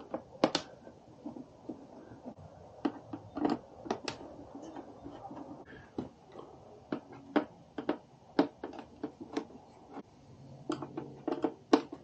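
Phillips screwdriver taking the screws out of a Honda Ruckus scooter's plastic front cowling: scattered light clicks and ticks of the tool, screws and plastic, irregular, about one or two a second.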